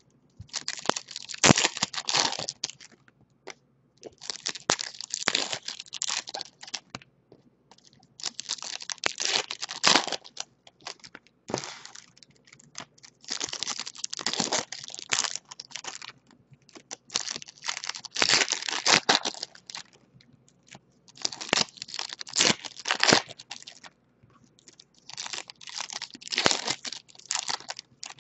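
Foil wrappers of 2019 Bowman Chrome baseball card packs being torn open and crinkled by hand, one pack after another. Each pack gives a burst of tearing and crinkling about two seconds long, every three to four seconds.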